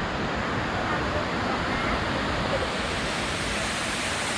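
Khun Korn waterfall rushing with a steady, even noise of falling water.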